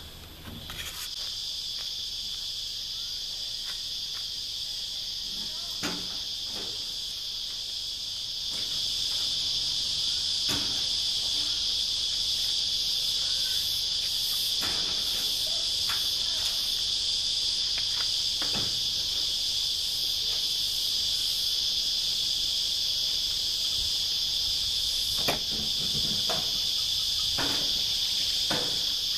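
Steady, high-pitched chorus of insects in the surrounding trees, with a few scattered knocks and clunks as the bus's side compartment and door are handled.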